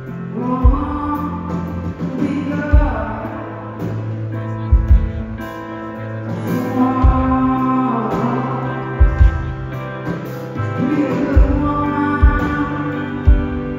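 Live band music: a woman singing long held notes over electric guitar, keyboard and drums, with a slow drum thump every second or two.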